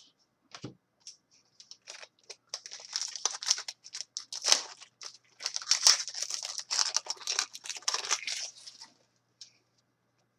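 Trading card packs and cards handled by hand: a rapid run of crinkling, rustling and tearing from about two seconds in to about nine seconds, as packs are opened and the cards sorted.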